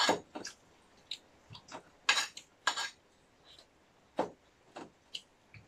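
Metal spoon clinking and scraping against a plate in short, irregular strokes, about eight in all, the loudest a pair about two seconds in.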